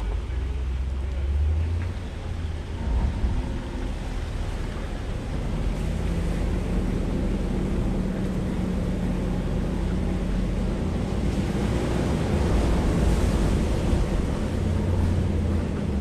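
Land Rover LR4's engine running steadily at low speed on a hill climb, a low rumble picked up close through the hood, with wind noise on the microphone. A steady low hum joins about six seconds in.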